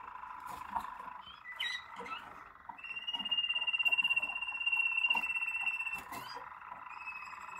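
Malinois (Waterslager) song canaries singing: continuous rolling trills, with a long held high note from about three seconds in to about six seconds, and a few sharp clicks.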